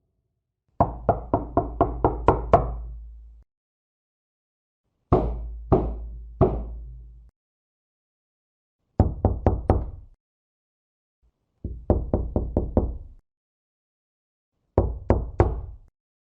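Knocking on a door in separate bouts with pauses between them. First comes a quick run of about seven knocks, then three slower knocks, then two runs of about five, and three knocks near the end.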